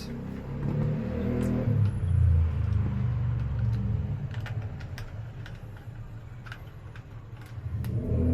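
Background music with a low, shifting bass line, over scattered light clicks.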